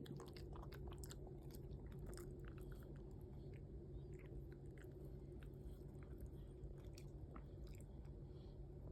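Toy poodle puppy eating yogurt: faint, irregular wet mouth clicks and smacks, dozens of them scattered through, over a steady low hum.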